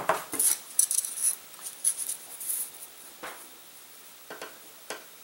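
Light handling noises of small objects being worked on a bench: a quick run of clicks, taps and rustles in the first couple of seconds, then a few scattered taps.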